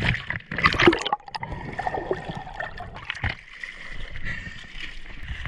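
Water splashing and gurgling close to the microphone, loudest in the first second or so, then settling into steadier sloshing.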